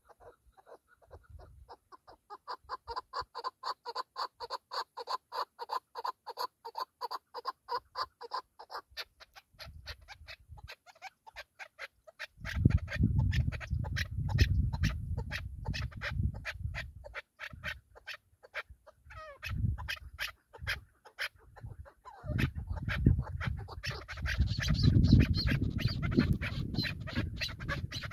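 Chukar partridges calling in a long, rapid series of repeated clucking notes that runs on throughout. Two long stretches of low rumbling noise come in, about halfway in and again near the end.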